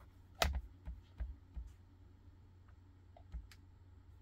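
A handful of short clicks from working a laptop while navigating in software, over a faint low hum. The sharpest click comes about half a second in, three lighter ones follow within the next second, and one more comes past the three-second mark.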